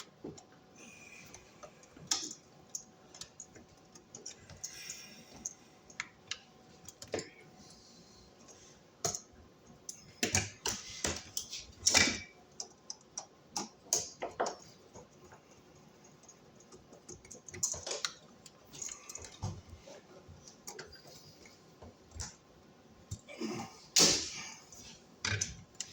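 Irregular light clicks, taps and short scrapes of hand work on a wall outlet: a flathead screwdriver working the terminal screws and wires being bent into place, with a few louder knocks.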